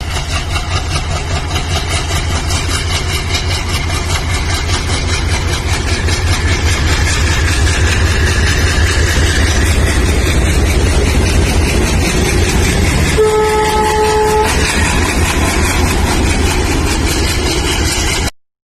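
WDG-3A diesel locomotive's 16-cylinder ALCO engine chugging loudly under power as it pulls a passenger train away, building slightly over the first several seconds. A single short horn blast sounds about thirteen seconds in, and the sound cuts off suddenly near the end.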